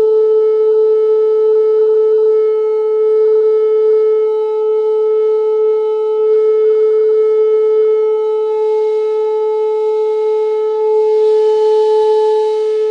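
Loudspeaker playing a loud, steady single-pitch tone with faint overtones, driving a wine glass at close to its resonant frequency to set it oscillating.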